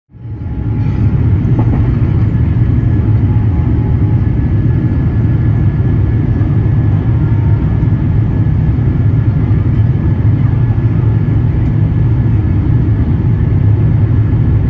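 Boeing 787-8 Dreamliner climbing after takeoff, heard inside the cabin: a steady, loud low rumble of engines and rushing air with a faint whine, fading in over the first second.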